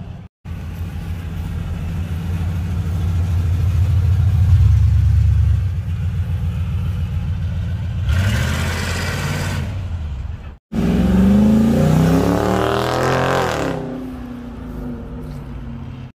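Car engines with loud exhaust: a deep rumble that builds over the first few seconds, then, after a sharp cut, an engine revving hard, its pitch climbing steeply and dropping back.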